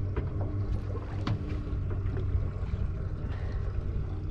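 Steady low rumble of wind and water around a small fishing boat at sea, with a few light clicks, the clearest about a second in.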